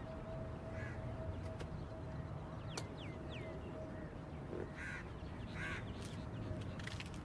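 A crow cawing twice, about five seconds in, over a steady low rumble.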